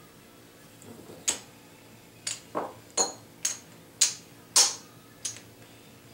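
Poker chips clacking against a stack as they are handled: about eight sharp clicks, irregularly spaced, starting about a second in.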